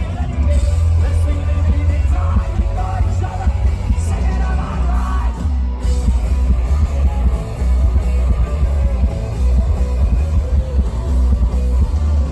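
Live punk rock band playing loud amplified guitars, bass and drums, with a shouted, sung vocal over the first half or so, then the band carries on without the voice. The bass end is heavy and booming.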